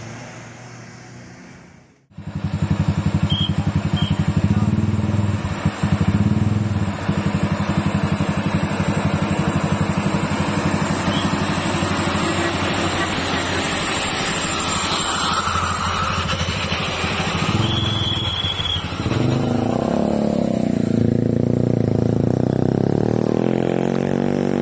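A vehicle engine running hard close by, its fast firing pulses loud and steady, typical of a vehicle pulling up a steep climb. A few short high beeps come about three to four seconds in, and a longer one around eighteen seconds. The engine note changes over the last few seconds.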